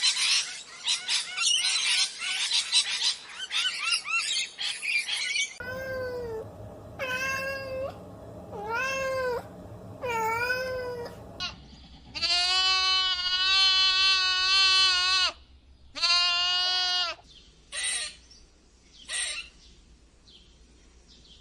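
A run of animal calls. First comes a dense chorus of many overlapping high cries, then four separate meows that rise and fall, then two long, steady, drawn-out calls and two short ones near the end.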